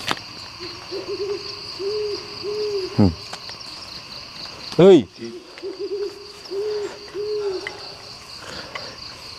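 An owl hooting over and over, short low hoots coming in pairs and quick runs, over a steady high insect drone. A man's loud shout of "hei" about five seconds in is the loudest sound.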